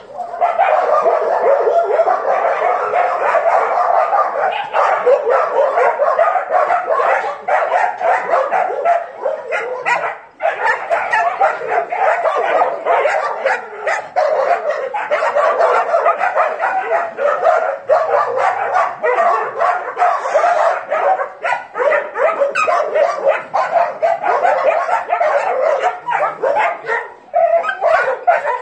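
Many dogs barking and yipping at once, loud and without a break.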